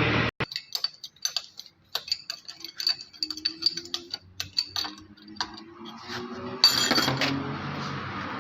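Small metal parts of a diesel injection pump clicking and clinking as they are handled and fitted, several light taps a second. About six and a half seconds in comes one louder, noisier burst.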